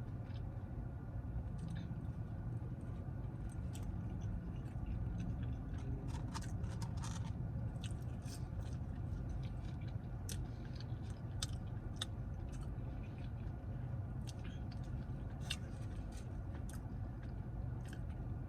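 Close-miked chewing of a bacon cheeseburger: soft wet mouth sounds and small clicks, over a steady low hum.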